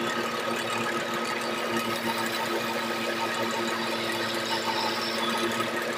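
Wood lathe running steadily: a constant motor hum and whine with a light rattle.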